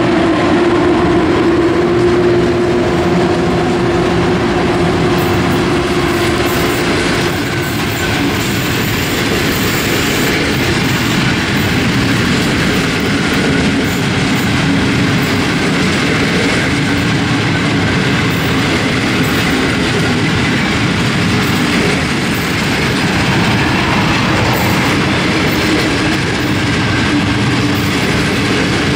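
Electric-hauled passenger train passing at speed, its coaches' wheels clattering rhythmically over the rail joints in a loud, continuous rumble. A steady hum in the first seven seconds or so fades out.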